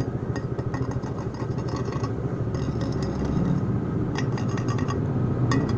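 Steady low machine rumble. Over it come scattered light clicks and knocks as stainless-steel pipes are handled, bunched in the first second, around four seconds in and again near the end.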